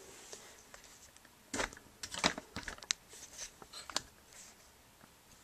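Scattered faint rustles and clicks as a thin metal cutting die, paper and a small strip of tape are handled and pressed down.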